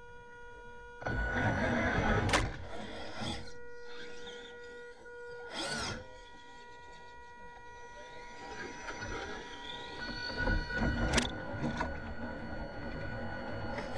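Tamiya CC-01 Unimog RC truck's electric motor and gearbox whining as it pulls away about a second in and drives over leaf litter, with the chassis rattling and sharp knocks as the stiff, undamped rear axle hits bumps. The whine climbs in pitch about two-thirds of the way in as the truck speeds up.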